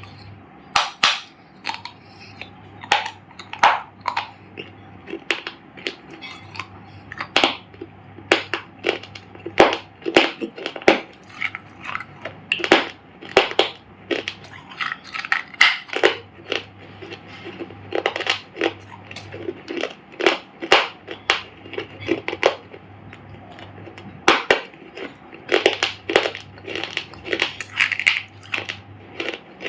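Shaped pieces of dried clay being crushed, a long irregular run of sharp crunches and crackles, some in quick clusters.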